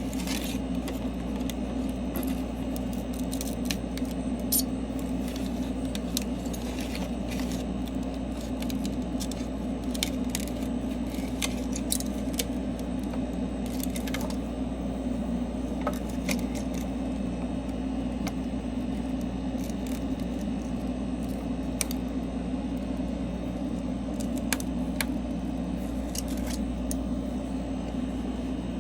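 A steady low machine hum with small sharp clicks and light scrapes scattered throughout, as of small hand tools working on a phone screen.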